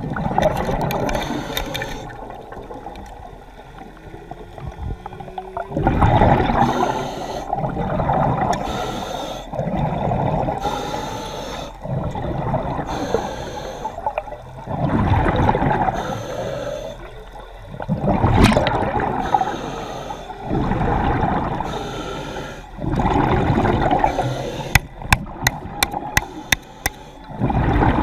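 A diver breathing underwater, heard muffled from inside a waterproof camera housing: each breath swells with bubbling and gurgling and then fades, about every three to four seconds. A quick run of sharp clicks or taps comes near the end.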